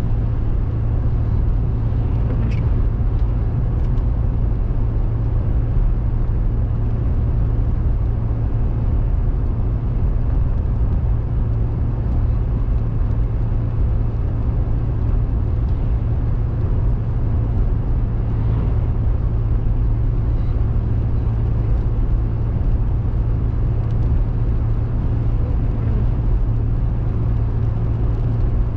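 Car driving steadily, heard from inside the cabin: a constant low drone of engine and tyres with an even hiss of road noise above it.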